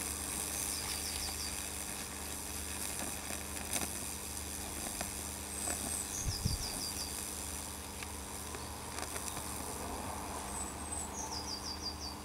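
Steady electrical hum with a hiss and scattered crackles as high-voltage current from a microwave oven transformer burns a Lichtenberg figure into wet, flaming plywood. A bird calls three times, near the start, about halfway through and near the end, each call a short high note followed by a quick run of about five falling notes.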